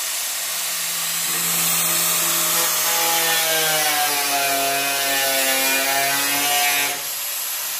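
Angle grinder with a cutting disc slicing into a sheet-metal bonnet panel: a steady motor whine that sags a little in pitch as the disc bites, cutting off about seven seconds in.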